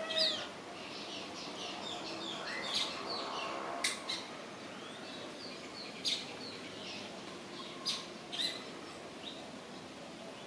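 Several birds chirping and calling at once, many short high chirps, with a few sharp, loud call notes standing out about three, four, six and eight seconds in.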